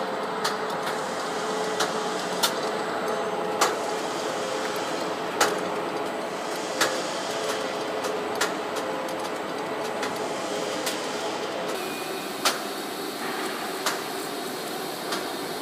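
Hose-building lathe running as it winds rope onto a hose mandrel: a steady mechanical hum with a few held tones, broken by sharp clicks every one to two seconds at uneven spacing.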